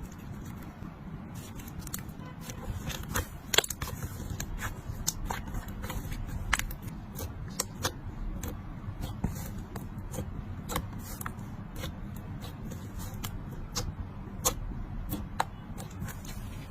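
Slime being squeezed and stretched by hand, giving irregular sticky pops and clicks, a few sharper than the rest, over a low steady rumble.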